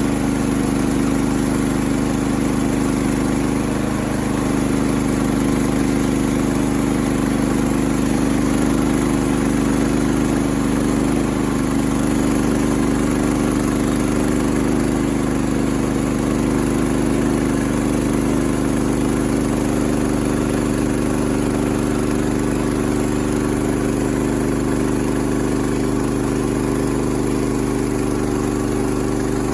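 Portable sawmill's gasoline engine running at a steady speed.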